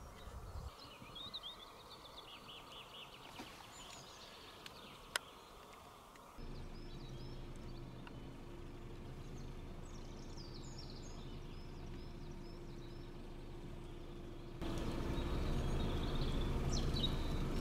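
Small woodland birds singing and calling in short chirps and trills, over a steady low hum that sets in about six seconds in and grows louder near the end.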